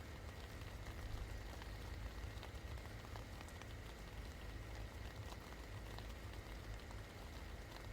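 Steady rain falling, with many small drops ticking sharply on surfaces over an even patter. A low steady rumble runs underneath.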